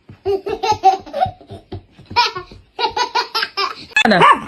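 A person laughing in rapid, high-pitched bursts, with a loud falling squeal about four seconds in.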